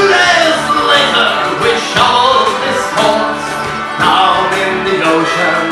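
Live pirate-style folk band playing a song on fiddles, acoustic guitars and squeezebox, with singing and a strong beat about once a second.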